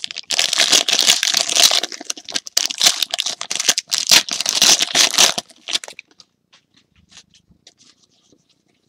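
Foil trading-card pack wrapper being torn open and crinkled in the hands, a dense crackling for about six seconds. It then drops to faint scattered ticks as the cards are handled.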